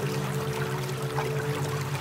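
Relaxing ambient music of sustained low tones over a steady running-water sound like a trickling stream. Beneath it a low hum pulses rapidly and evenly: the alpha-frequency tone built into a subliminal audio track.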